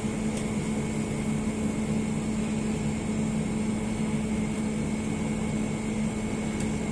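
Steady machine hum: a constant low drone with fainter higher whines above it, and a couple of faint clicks.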